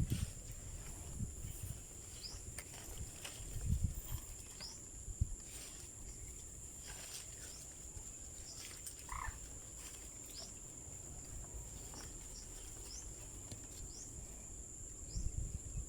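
Frogs calling in short chirps about once a second over a steady high insect drone. A few low rumbles come and go.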